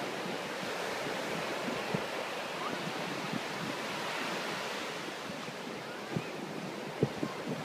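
Ocean surf breaking and washing up the beach, a steady rushing noise, with a few short knocks of wind buffeting the microphone.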